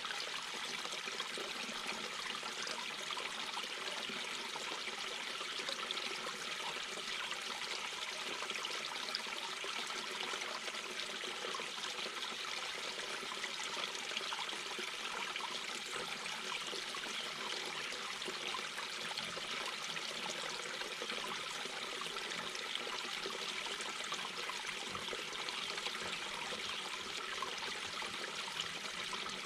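Mountain brook babbling and trickling over rocks: a steady, even rush of running water.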